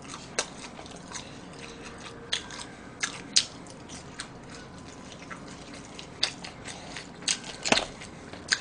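Chewing and crunching on crisp fried food, with sharp crunches scattered through and bunched around three seconds in and again in the last couple of seconds.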